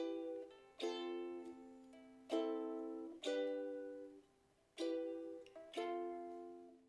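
Background music of strummed ukulele chords: six strums, each ringing out and fading before the next. The music stops at the very end.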